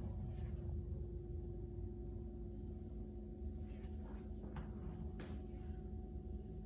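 Quiet indoor room tone: a steady low hum with a faint constant tone, and a few soft clicks a little past the middle.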